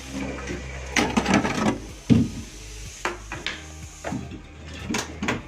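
A series of irregular knocks and rubbing, scraping sounds from objects being handled.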